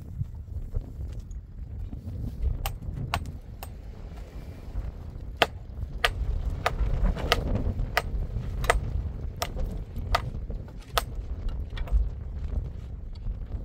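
A hand hammer striking and chipping stones to shape them for a wall, with sharp, irregular strikes about one to two a second. A low wind rumble runs underneath on the microphone.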